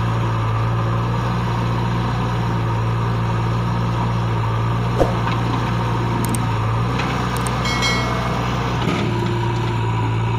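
Heavy diesel engines of a JCB 3DX backhoe loader and a New Holland tractor running at a steady idle, with a sharp click about halfway through and a brief high whine shortly after.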